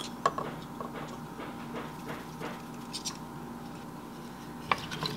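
A few light clicks and taps from a glass salt jar and a metal measuring spoon being handled and set down, over a faint steady hum.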